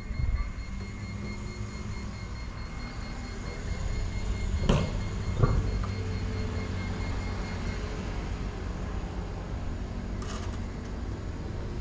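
A vehicle engine running close by as a low, steady rumble, with two sharp knocks about five seconds in and a faint high-pitched pulsing tone over the first several seconds.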